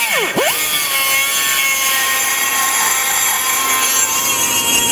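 Pneumatic die grinder with a carbide burr running at high speed, grinding into a polished aluminum carburetor hat: a steady high whine whose pitch drops briefly and climbs back a moment in. The burr is clogged with aluminum, which makes it cut less well.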